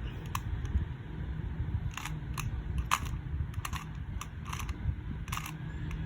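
QiYi 2x2 speed cube being turned through an algorithm: a run of sharp, irregular clicks as the layers snap round.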